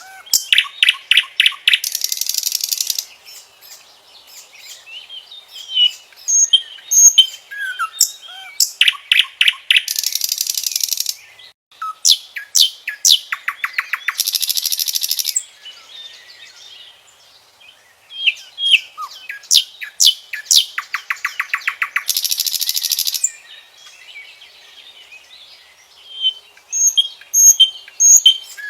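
Common nightingale singing: loud phrases of rapidly repeated notes and fast trills, separated by short pauses of a second or two.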